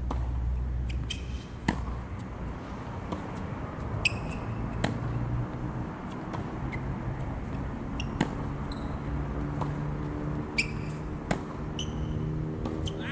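Tennis balls struck by rackets and bouncing on a hard court during a baseline rally: sharp pops every second or two, some with a brief ringing ping, over a low steady background hum.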